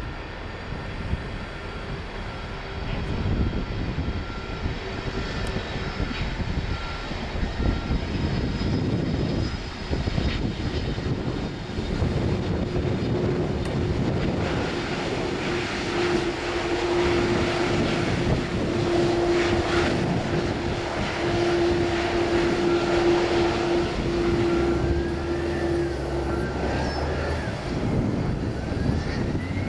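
Jet engines of a KLM McDonnell Douglas MD-11 on its landing rollout down the runway: a steady, dense jet noise that swells after the first couple of seconds, with a steady hum held through the middle stretch.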